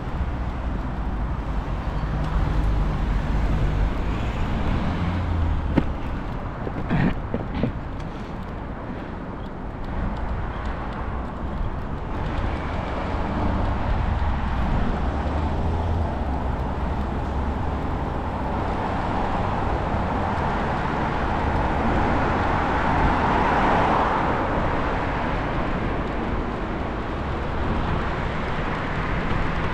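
Road traffic running along a main road beside a cycle path, heard from a moving bicycle, over a low rumble. A few sharp clicks come about seven seconds in, and the traffic noise swells and fades again around twenty-three seconds in.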